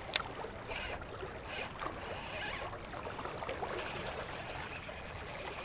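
Spinning reel being cranked to retrieve a cast blade bait, with a sharp click just as it starts, over water lapping at a rocky bank. A thin high whine joins in for the last two seconds.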